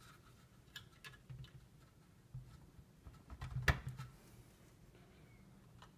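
Faint clicks and rustling as wires are handled and their connectors pushed onto the terminals of a replacement power supply board, with one sharper click about three and a half seconds in, over a low steady hum.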